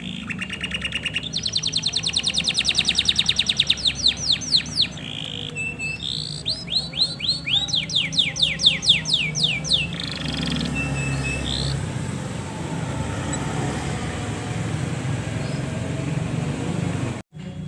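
Male domestic canary singing: a fast trill, then long rapid rolls of high whistled notes and a series of quick down-slurred notes. The song stops about ten seconds in, leaving a low steady hum.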